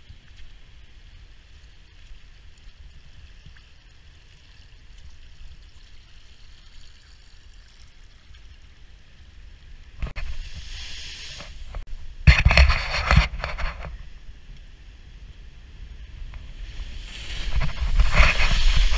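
Storm surf breaking over a seawall and washing across a flooded walkway: a low steady wash at first, then a sudden loud crash of a wave and spray about ten seconds in, loudest a couple of seconds later. A second loud rush of noise builds near the end.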